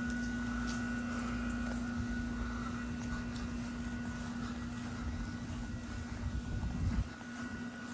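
Pressure washer engine running steadily at a constant hum, with a low rumble on the microphone that drops away about seven seconds in.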